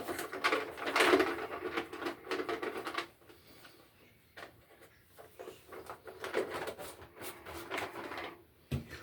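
Hands handling electrical wires and tools: bursts of rustling, scraping and small clicks, with a quieter spell in the middle.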